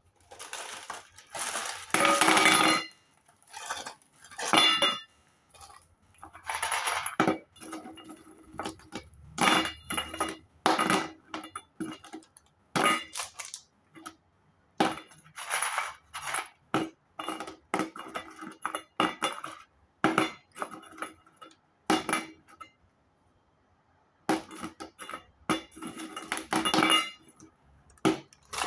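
Vanilla butter tablets clinking and clattering against a ringing dish in repeated short bursts, with a pause of about two seconds past the middle.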